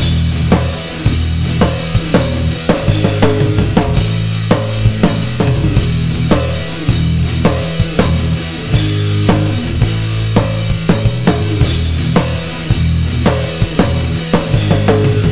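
Background music with a steady drum-kit beat and a sustained bass line.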